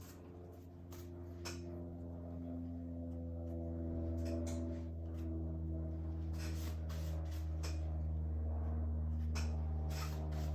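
Soft, sustained ambient music with slowly changing low chords that swell over the first few seconds, and scattered light taps of paint being dabbed onto a canvas.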